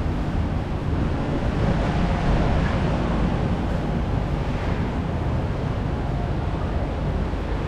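Steady wind buffeting the microphone: an even, low rumbling hiss with no separate sounds standing out.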